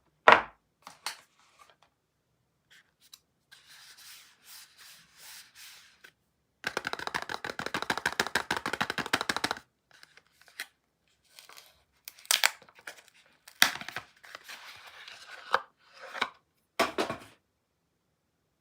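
Soap packaging being unwrapped by hand: a few clicks and soft rustling, then a steady tear lasting about three seconds, then several sharp crinkles of the wrapper.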